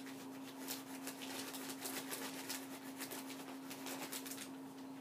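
Quiet, irregular scratching and rustling of paper being drawn on and handled, over a steady hum.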